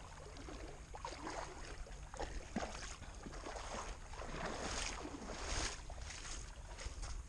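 Legs sloshing through shallow water while wading, with irregular splashes. Near the end come footsteps onto a gravel shore.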